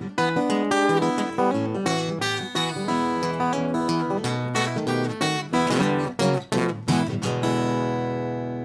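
Steel-string acoustic guitar fingerpicked, a quick run of single notes over a bass line, ending on a final chord about seven and a half seconds in that rings on and slowly fades.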